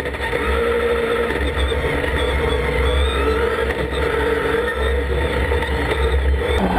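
Dacia Duster No Limit race car's engine heard from inside the cabin, its pitch rising and falling over and over as the driver accelerates and lifts, over a deep rumble.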